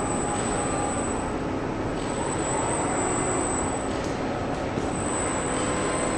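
Steady machinery noise of an automated electric-motor assembly line with industrial robot arms at work, with a few faint short hisses.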